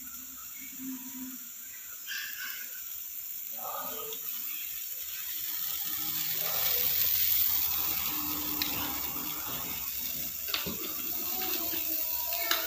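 Pork simmering in broth in a steel wok over a gas burner: a steady bubbling that grows louder about halfway through, with a few light clicks.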